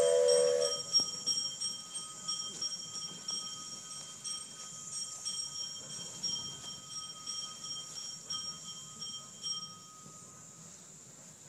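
Steam locomotive's whistle, cut off about half a second in, then the locomotive's bell ringing with quick, regular strokes that fade away near the end.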